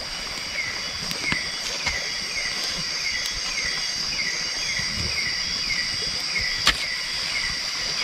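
Night chorus of insects: a steady high drone with short falling chirps repeating about twice a second. Now and then the small campfire of dry sticks and leaves gives a sharp crackle, the loudest a little before the end.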